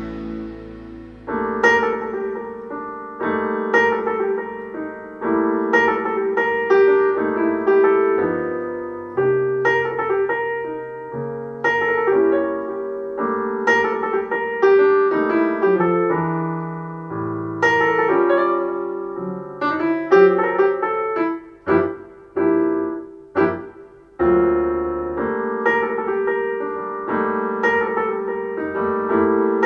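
Piano jazz played back through a pair of B&W Vision V201 bookshelf speakers and picked up by a microphone in the room: struck piano chords and melody notes, with a few brief gaps a little past twenty seconds in.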